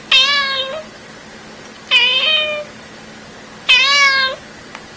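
Grey tabby cat meowing three times, about two seconds apart; each meow is short and turns up slightly in pitch at the end.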